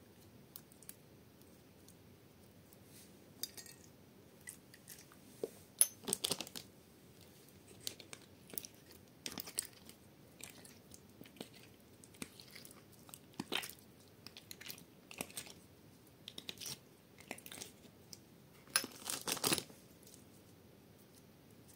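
Clear jelly slime squeezed and squished by hand: irregular sticky clicks and wet crackles, in short clusters, the loudest about six seconds in and again near the end.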